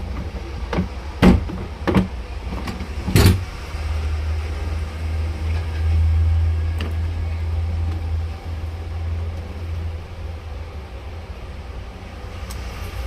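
A few sharp knocks and clicks of a children's electric scooter being taken apart by hand around its starter switch, then a steady low hum that swells and eases.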